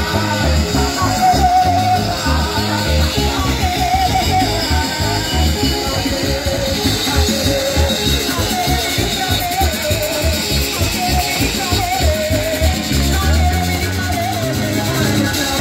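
Live Pentecostal worship chorus played loud through PA speakers: women singing into microphones over guitar and drums, with heavy bass and a wavering melody line.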